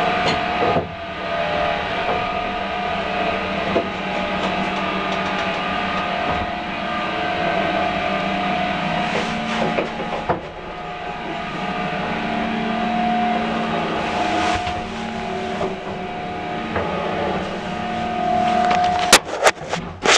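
An old Express electric lift car travelling between floors, with a steady whine and rumble from its machinery. A few sharp clicks come near the end, and the running noise then drops away, as the lift comes to a stop.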